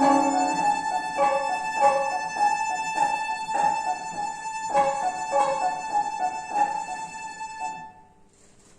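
Violin ensemble holding a long high note over piano accompaniment in short repeated notes, growing slowly quieter and stopping about eight seconds in: the closing bars of the piece.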